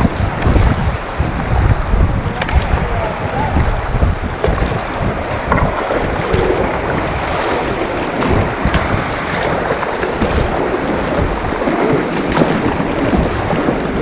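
Rushing whitewater around a packraft, with wind buffeting the microphone in uneven low gusts.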